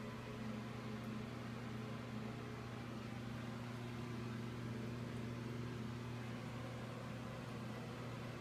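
A steady low hum with an even hiss underneath, unchanging throughout; no flush is heard.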